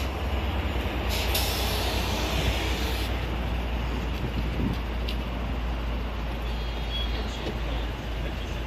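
City bus at the stop, its engine running with a steady low rumble and a hiss of compressed air from its air system about a second in that lasts a couple of seconds.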